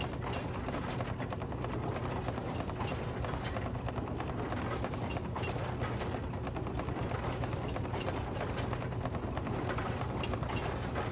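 Threshing machine and baler running steadily, belt-driven by a Field Marshall single-cylinder two-stroke diesel tractor: a constant mechanical hum with continual clattering and ticking from the working parts.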